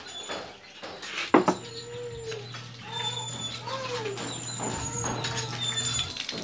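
A few short animal cries, each rising and falling in pitch, over a steady low hum, with a sharp knock about a second in and faint high chirps.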